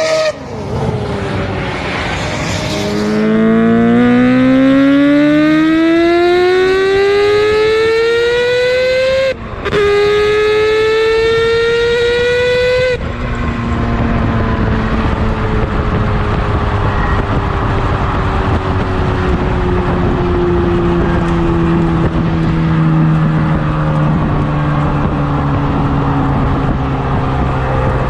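Mazda R26B four-rotor rotary racing engine accelerating hard, its note climbing steadily, dropping for a shift about nine seconds in and climbing again. About thirteen seconds in the sound changes abruptly to a noisier, lower note that falls slowly.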